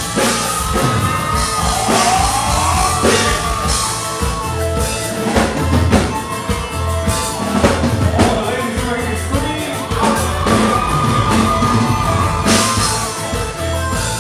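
Live Tejano band music played loud through a club PA: a drum-kit beat under long, held melody notes that bend in pitch, with some singing.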